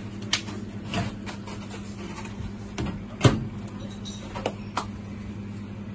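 Kitchen clatter: a scattered series of short knocks and clicks, the loudest a little over three seconds in, over a steady low hum.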